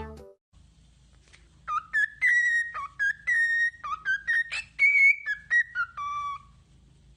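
A parrot whistling a run of short notes, some held and some sliding up or down, for about five seconds.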